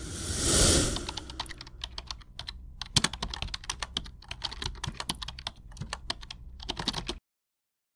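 Intro sound effects: a whooshing swell at the start, then a fast, irregular run of sharp clicks, like rapid typing or digital glitch ticks, that cuts off suddenly about seven seconds in.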